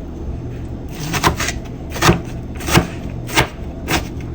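Kitchen knife chopping through an onion onto a cutting board. Sharp, evenly spaced strokes start about a second in, roughly one every two-thirds of a second, with a quick cluster of three at first.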